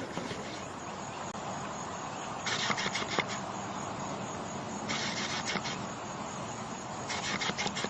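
A sleeping animal snoring: three noisy breaths about two seconds apart, each lasting under a second, over a steady background hiss.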